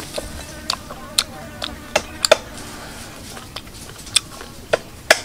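Utensils clinking and tapping against dishes and bowls: about nine irregular sharp clinks, each with a short ring.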